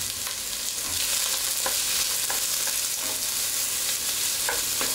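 Diced onions sizzling in hot oil in a stainless steel pot, a steady frying hiss. A wooden spoon stirs them, giving a few soft knocks and scrapes against the pot.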